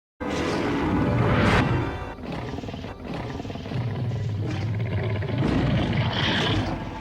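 Cartoon Tyrannosaurus monster roaring, a film sound effect over orchestral score, cutting in abruptly from silence and loudest about a second and a half in.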